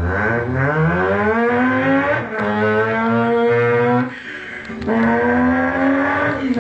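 A person imitating a revving car engine with their voice into a microphone: a buzzing tone that climbs in pitch, drops sharply at a mock gear change about two seconds in, climbs again, pauses briefly around four seconds, then climbs once more.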